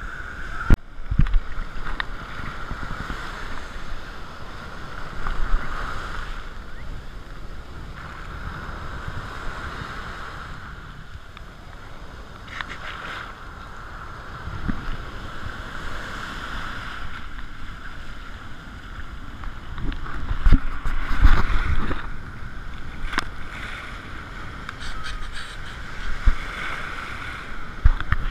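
Breaking surf heard at water level: waves washing and sloshing around, swelling now and then into heavier surges. There are a few sharp knocks of water hitting the camera.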